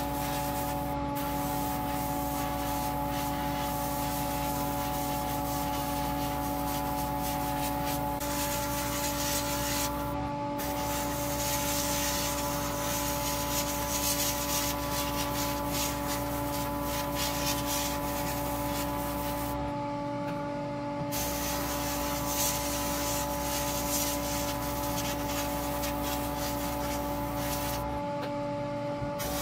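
Airbrush hissing steadily as paint is sprayed on a plastic model part, over the steady hum of a spray-booth fan; the hiss stops for a moment a few times while the hum runs on.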